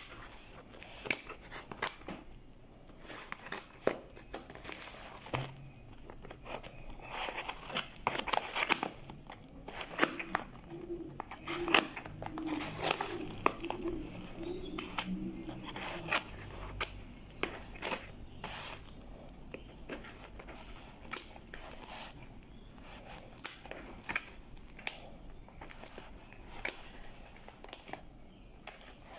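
Small scissors snipping and plastic wrapping crinkling and rustling as a plastic-wrapped paper parcel is cut open: an irregular run of sharp clicks and rustles.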